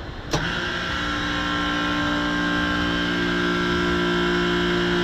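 Refrigeration condensing unit's reciprocating compressor starting up: a sharp click about a third of a second in, then a steady hum that builds over the next second and holds.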